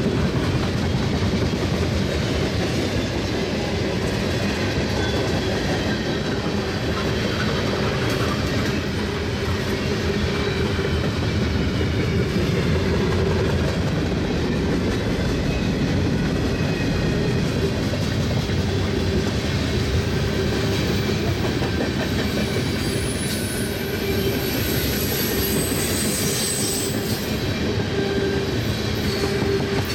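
Freight cars of a mixed freight train, tank cars and covered hoppers, rolling past close by: a steady rumble and clatter of steel wheels over the rail joints. High-pitched wheel squeals come in over it a little past two-thirds of the way through.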